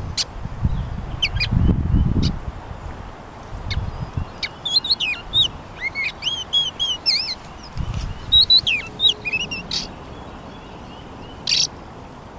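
Small birds chirping in quick rising and falling notes, through the middle few seconds. Wind rumbles on the microphone at the start and again briefly about eight seconds in.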